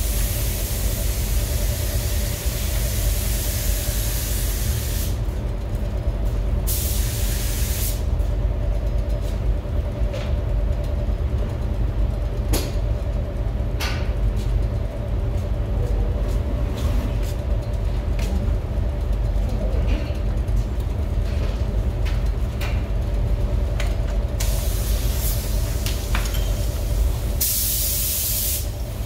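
Compressed-air paint spray gun hissing in bursts: a long one of about five seconds at the start, a short one about seven seconds in, and more near the end. Underneath runs the steady low rumble and hum of the spray booth's ventilation.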